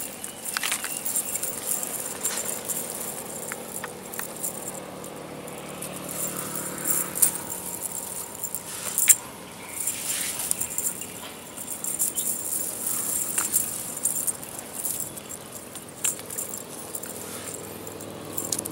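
Cast net's lead sinkers rattling and clinking as the net is handled, with many short scattered clicks.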